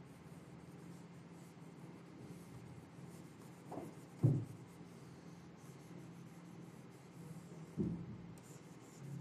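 Pen strokes on a drawing tablet as a diagram is traced, over a faint steady hum. There are a few short dull knocks, the loudest about four seconds in and another near eight seconds.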